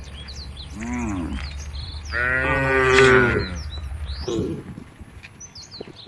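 Cattle mooing: a short call about a second in, then a longer, louder moo, with a brief low call after it. Small birds chirp throughout.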